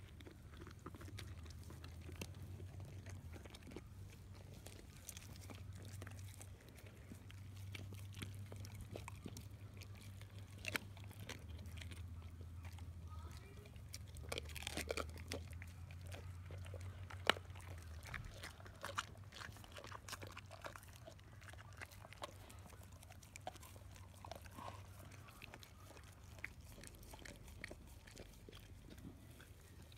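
Dogs chewing raw salmon heads: wet, irregular chewing with scattered sharp cracks and crunches of fish bone and cartilage.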